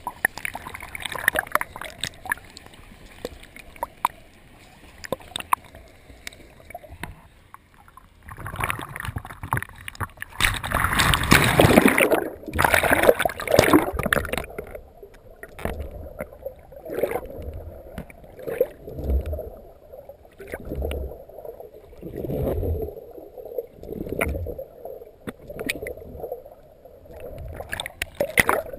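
Pool water splashing and churning around an action camera held by a swimmer as the lens dips in and out at the surface, muffled when under. The loudest splashing comes about ten to fourteen seconds in, then a regular surge of water every second or so with the swimming strokes.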